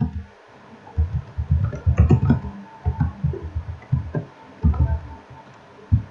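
Computer keyboard typing: irregular clusters of dull keystroke thumps with a few sharper clicks, as a short phrase is typed.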